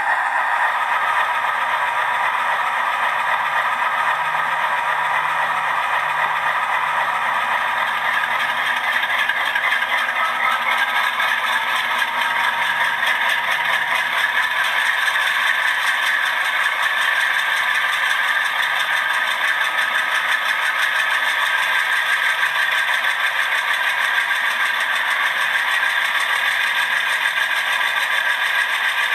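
Model locomotive sound decoder playing a diesel engine running steadily, with a rattling, knocking beat and little bass, as from a small onboard speaker.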